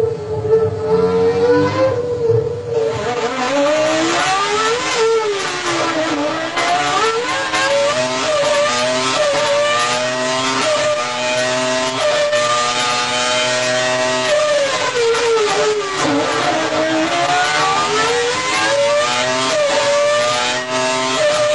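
Renault Formula One V10 engine at high revs, its pitch sweeping up and down through the gears. The pitch drops sharply twice, near a quarter of the way in and again past the middle, then climbs back.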